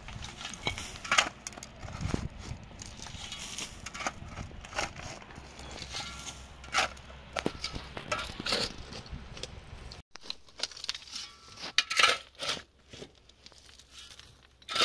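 Irregular crunches, scrapes and small knocks from work in gritty sand or earth. About ten seconds in, the low background drops away abruptly and the scrapes go on more sparsely.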